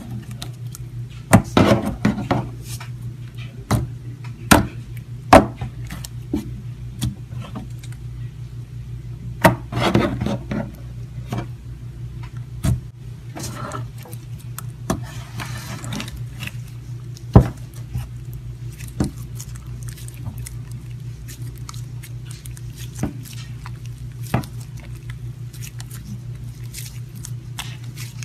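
Thick white slime being kneaded, folded and stretched by hand, giving irregular sticky clicks and pops with a few longer squishing stretches, over a steady low hum.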